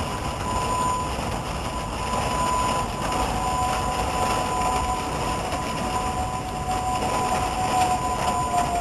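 Outdoor tornado warning sirens sounding: a steady high tone throughout, joined about three seconds in by a lower tone that starts to fall in pitch near the end, over a steady rushing noise.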